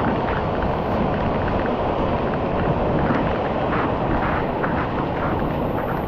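Waterfall heard from right under the falling water: a loud, steady rush, with spray striking the microphone.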